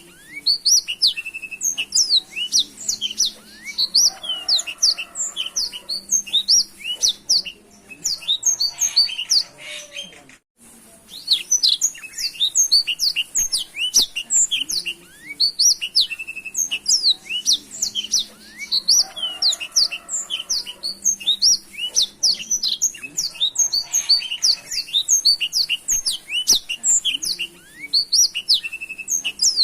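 Black-throated canary (blackthroat) singing a long, fast, unbroken song of rapid high chirps, trills and short whistled glides, with a brief break about ten seconds in.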